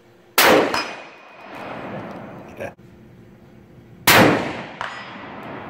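Two rifle shots from a .223 Remington Tikka T3x bolt-action rifle, about three and a half seconds apart. Each is a sharp crack followed by a long echoing decay and a fainter second report.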